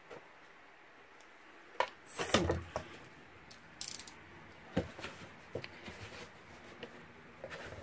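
Light knocks, scrapes and rustles of a kraft cardstock box and a snap-off craft knife being handled and lifted off a cutting mat, in a scattering of short sounds, the loudest cluster about two seconds in.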